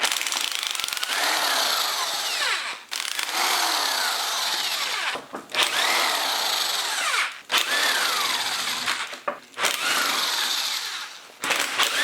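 Handheld electric power tool running in about five bursts of roughly two seconds with short breaks between them, its pitch rising and falling within each burst as it is worked against a part.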